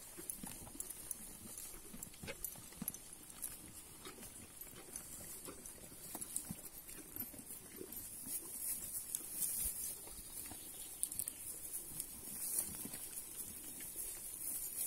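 A mule munching hay, with irregular crunches and soft knocks as it chews and pulls at the feed, over a faint steady high hiss.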